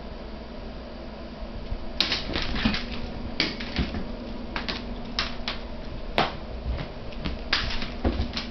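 A toy mouse on a string clattering and skittering across a hardwood floor as a cat bats at and chases it: irregular sharp clicks and rattles, starting about two seconds in.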